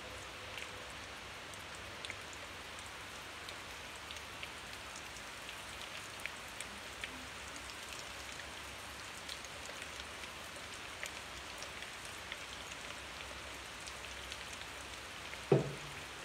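Breaded eggplant sticks shallow-frying in oil in a small pan at medium-high heat: a steady sizzle with scattered little pops and crackles. A single sharp knock near the end.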